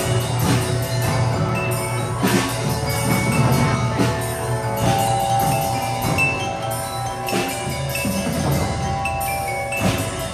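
Music of chiming bell-like mallet percussion over a low steady drone, with struck notes every second or two.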